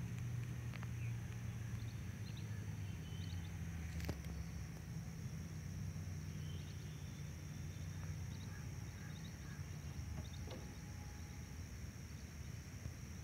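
Quiet rural outdoor ambience: a steady high-pitched whine over a low hum, with faint scattered chirps and a single click about four seconds in.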